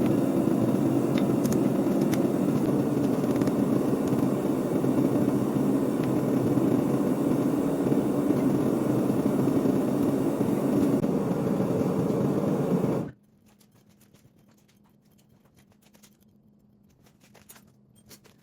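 Steady roar of a forge running, which cuts off suddenly about two-thirds of the way in, leaving near quiet with a few faint clicks.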